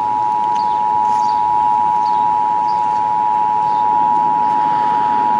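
Emergency Alert System attention signal: the 853 Hz and 960 Hz two-tone alert held as one steady, unbroken tone, the signal that announces an EAS broadcast message, here a required monthly test.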